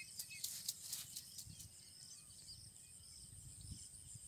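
Quiet outdoor ambience: a steady high insect chirring with faint bird chirps, and a few clicks and rustles of handling in the first second.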